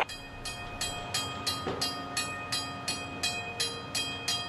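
A train running on the railway, with a regular beat of about three strokes a second and faint steady tones underneath.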